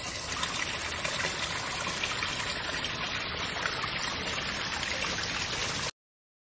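Pond water splashing and trickling where the filter's return stream falls into the pond: a steady running-water sound that cuts off suddenly near the end.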